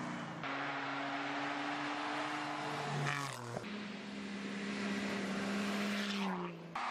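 Rally-raid cars driving fast on a snowy road: a steady high engine note over a hiss of tyre and snow noise. About three seconds in, another car's engine takes over, holding a steady note until its pitch drops as it passes close near the end.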